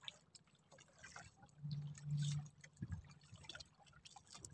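Water dripping and trickling off a wet gill net as it is hauled hand over hand into a wooden outrigger boat, with scattered small ticks of net and wood. A short low hum comes twice about two seconds in, followed by a dull knock.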